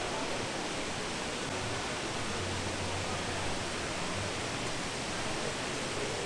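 A steady, even rushing noise with a faint low hum underneath.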